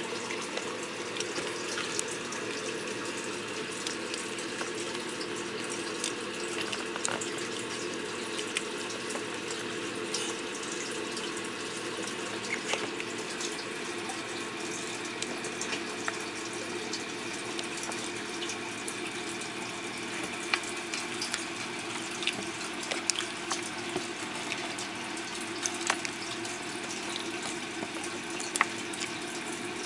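Steady running water, with scattered sharp clicks and taps that come more often in the second half.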